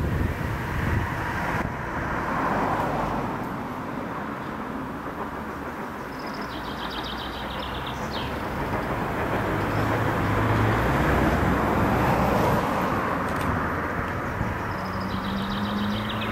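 Distant GWR Collett 0-6-0 steam locomotive approaching down the line, heard as a steady rumbling rush that swells and fades with no distinct exhaust beats. A bird sings short trills over it, about every eight seconds.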